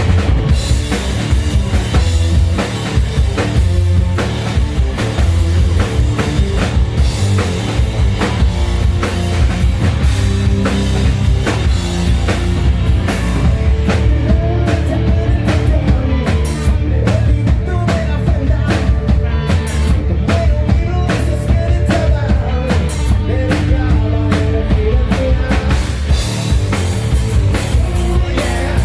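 Hard rock band playing live: loud drum kit and electric guitars.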